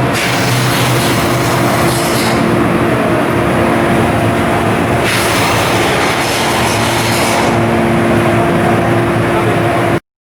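Ship's diesel engine running steadily, a loud continuous roar with a held hum, which cuts off suddenly near the end.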